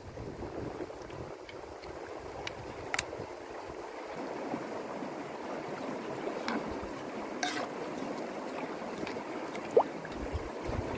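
Water pouring from a plastic bottle into a pot of rice, then a metal spoon stirring the rice in the water, with light clicks against the pot, over the steady rush of a river. One short rising squeak comes near the end.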